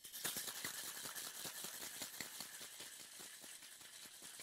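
Cocktail shaker being shaken hard, ice rattling inside in a fast, even clatter, like maracas.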